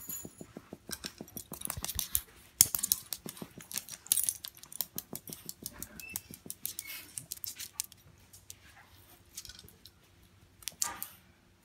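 A Yorkshire Terrier's claws clicking and tapping on a hardwood floor as the small dog moves about, in quick irregular ticks that are busiest in the first few seconds, with a short flurry near the end.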